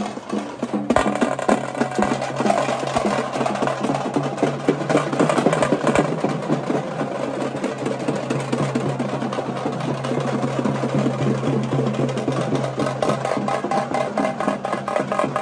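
Loud, fast drumming of a street procession band, dense rapid strokes without a break, with a steady low hum beneath it through the middle.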